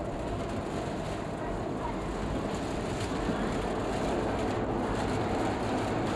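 Rapid-transit train running along its track, heard from inside the front car: a steady rumble of wheels on rail with a faint steady whine, growing slightly louder.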